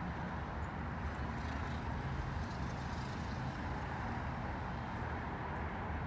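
Steady outdoor background noise with a low rumble.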